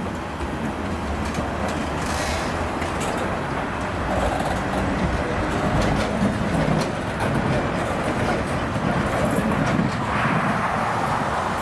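Loaded or empty steel gondola cars of a slow freight train rolling past: a steady rumble of wheels on rail with scattered sharp clicks from the wheels and couplers.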